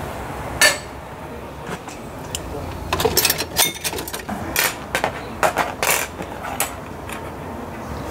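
Dishes and cutlery clinking and knocking as a plate and utensils are handled: one sharp knock about half a second in, then a quick run of clicks and clatters from about three to seven seconds.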